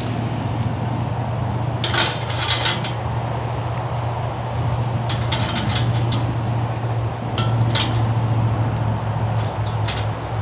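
Sticks of wood fed by hand into a small folding steel wood-burning stove, clinking and knocking against its metal sides eight or so times, over a steady low hum.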